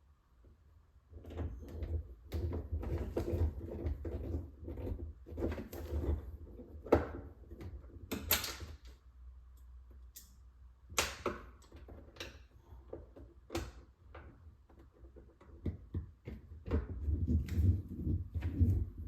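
Irregular clicks, knocks and clatter of refrigerator panels and parts being handled and fitted back in place during reassembly. A low hum rises under the knocks at times and drops away again.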